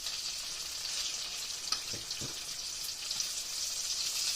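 Green tomato slices frying in a pan of hot oil: a steady sizzle with small scattered crackles.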